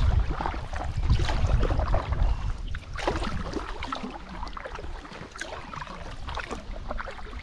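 Kayak being paddled on a river: paddle blades dipping and splashing in the water with several separate strokes. A low rumble on the microphone is heaviest in the first two seconds or so.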